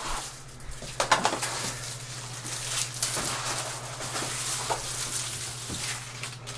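Handling noises as a lightsaber's metal hilt and blade are taken from the foam case and fitted together: scattered clicks and knocks, the sharpest about a second in, over a low steady hum.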